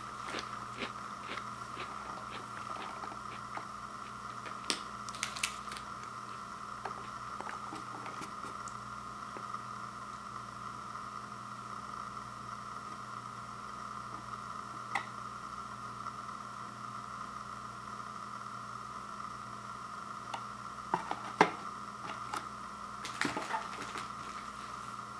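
Steady background hum with scattered light clicks and taps as a cardboard cookie box and its foil wrappers are handled, including a short cluster of sharper taps near the end when the box is set down on a wooden floor.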